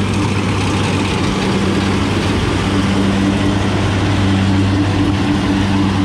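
Rice combine harvester running close by, its engine and threshing works making a steady low drone as the reel's tines pull in the standing rice.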